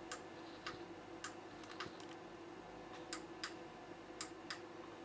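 A string of about ten small, sharp clicks, irregularly spaced, over a faint steady hum.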